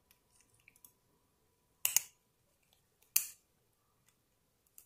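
Short sharp clicks of steel tweezers against the plastic movement spacer ring and case of an Orient 59940 watch as the spacer is pried out: a quick double click about two seconds in and another a little over three seconds in.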